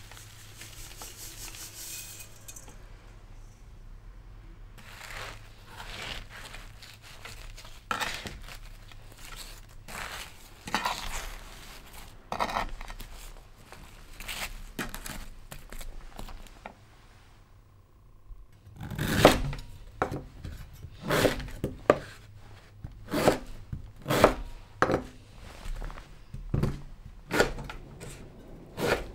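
Sugar pouring in a hissing stream onto sliced wild pears in a wooden bowl, then hands tossing the sugar-coated slices with scattered scraping, crunching strokes. In the second half, a chef's knife cuts through whole wild pears onto a wooden cutting board in a run of solid knocks, about one or two a second, the loudest sounds.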